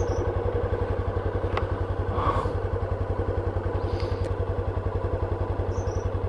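Motorcycle engine running at low, steady revs with an even, rapid pulsing beat, and a few faint clicks over it.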